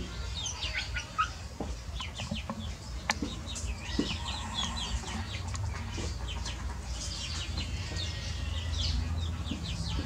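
A flock of house sparrows and Eurasian tree sparrows chirping, many short overlapping chirps throughout, over a low steady rumble.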